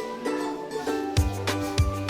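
Music: a melody of short plucked-string notes, joined a little past halfway by a bass and drum beat about every 0.6 s.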